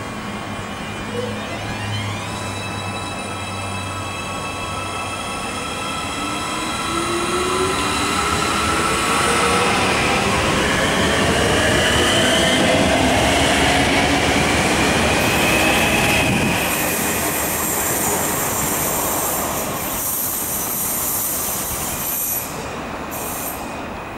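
Siemens Desiro electric multiple unit passing close by, its traction motors whining in several tones that rise steadily in pitch as it gathers speed, loudest about halfway through. A high wheel squeal and hiss come in during the second half.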